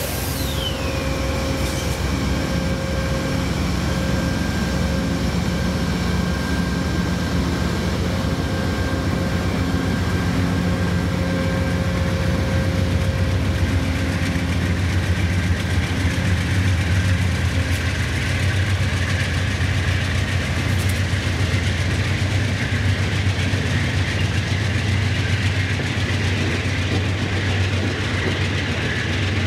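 Two Amtrak GE Genesis P42DC diesel-electric locomotives running as they pull a passenger train slowly past, followed by the passenger cars rolling by on the rails. The engine drone is steady and grows a little louder through the middle.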